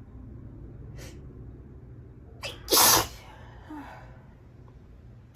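A woman sneezes once, loudly, about three seconds in, after two quick breaths in.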